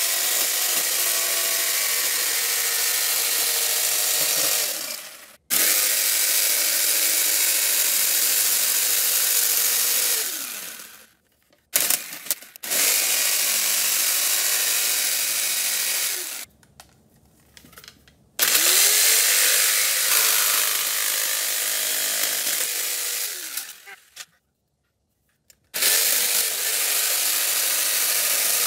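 Corded Skil jigsaw cutting through a motorcycle's plastic side fairing panel. It runs in stretches of a few seconds and is stopped and restarted about five times, once only briefly.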